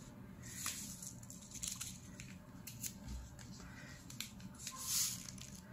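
Small paper sugar sachets being torn open and emptied: several short, crisp rips and rustles, the loudest near the end.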